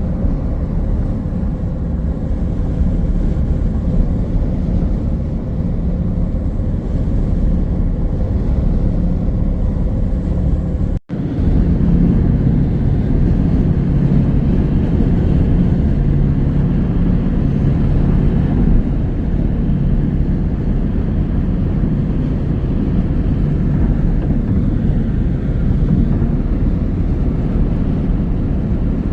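Steady road and engine noise of a car being driven, heard from inside the cabin, with a brief cut-out about eleven seconds in.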